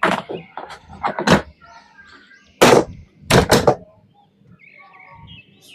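A series of sharp knocks or thuds, about five or six hard hits in the first four seconds, two of them close together near the middle, then quieter.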